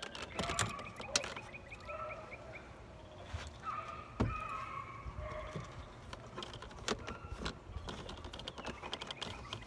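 Scattered light clicks and knocks from hands working at a car door and its mirror mount, the loudest knock about four seconds in, with birds chirping in the background.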